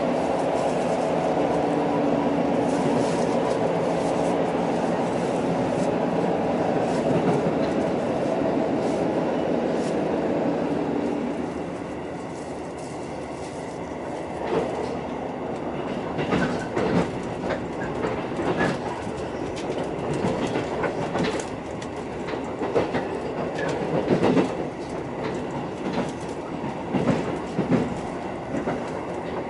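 Running noise inside a JR Central KiHa 85 series diesel railcar, car KiHa 84-302, powered by two Cummins diesel engines. A steady engine and running hum fills the first ten seconds or so, then drops away about eleven seconds in. After that the wheels click and thump irregularly over the rail joints.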